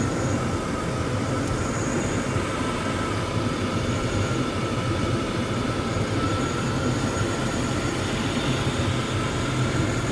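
1999 GMC truck's V8 idling steadily on a cold start, its cleaned intake manifold just refitted on new gaskets and the engine being checked for misfires.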